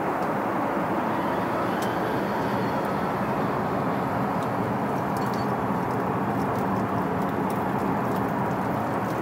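Steady in-flight cabin noise of an Airbus A380 airliner: an even rushing drone that does not change, with a few faint light clicks.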